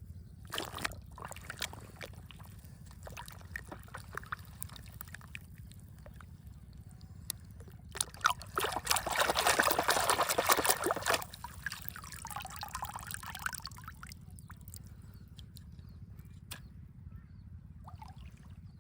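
Water sloshing and trickling, loudest for about three seconds in the middle and fading away after, with scattered light clicks and taps before it.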